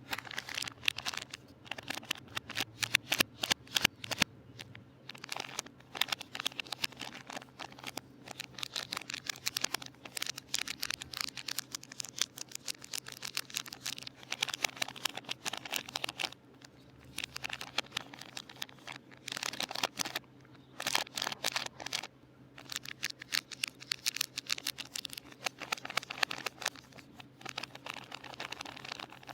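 Soap packaging being unwrapped by hand: the wrapping crinkles and tears in dense crackling runs that stop briefly now and then.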